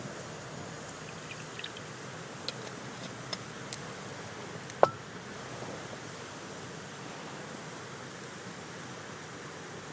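Wood campfire burning with a steady hiss and scattered crackles, and one sharp pop about five seconds in.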